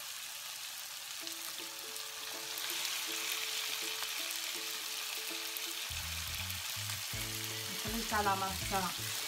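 Pieces of raw fish frying in a pan of onion and chermoula: a steady sizzle that gets louder about two and a half seconds in.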